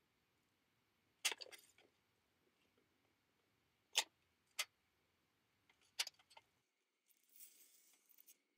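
Metal kebab skewers and a metal pizza pan clinking on a campfire grate as food is set out: four sharp clinks spread over several seconds, then a soft rustle near the end.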